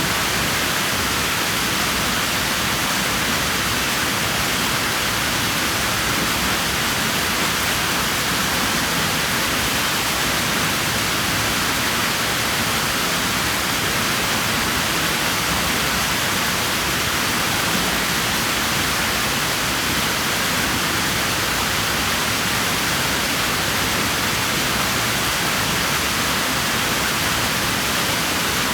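Water in a swimming pool making a steady, even rush without breaks.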